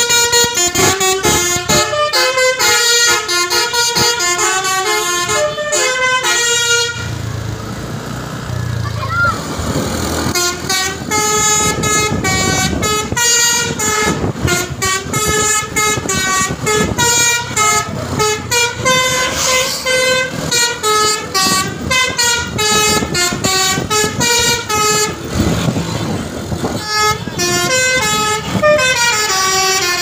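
Basuri telolet musical air horn on a Tunggal Jaya coach playing a fast melody of short, quick-changing notes. The tune breaks off for about three seconds around seven seconds in, leaving a low rumble, then resumes, with another brief pause near the end.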